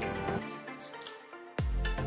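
Outro music starting abruptly from silence with a few melodic notes, then a heavy beat with deep bass comes in near the end.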